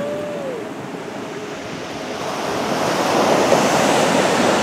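Surf breaking and washing up the beach, growing louder about two seconds in, with wind buffeting the microphone.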